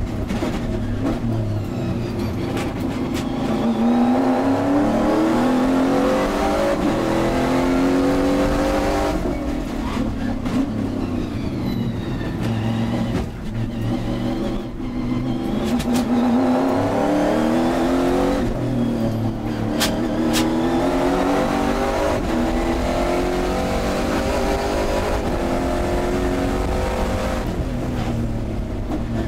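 Racing car engine heard from inside the cockpit under hard acceleration, its pitch climbing and dropping back at each upshift. It falls away several times under braking and downshifting, then climbs again.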